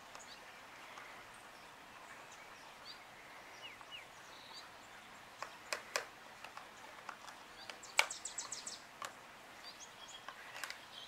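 Faint bird chirps over quiet outdoor background noise. A few sharp plastic clicks come midway, then a louder click and a quick run of clicks about eight seconds in as the lid of a plastic food tub is pressed shut.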